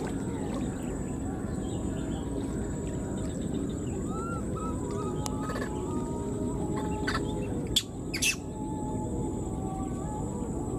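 Newborn macaque giving faint, high, arching calls over a steady outdoor noise bed, the calls of an infant left behind by its mother. Two sharp clicks come a little under eight seconds in.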